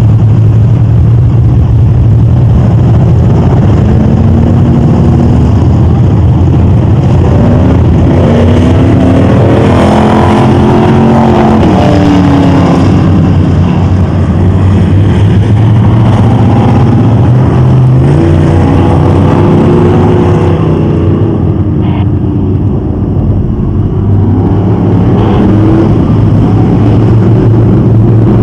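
A field of dirt-track stock cars racing, very loud. Their engines rise and fall in pitch again and again as the cars come past, with several overlapping.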